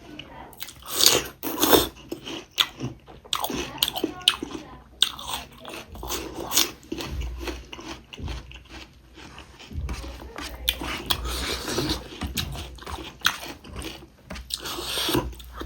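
Close-miked eating: a person biting and chewing a meal of pork ribs and rice, with many irregular crunches and clicks.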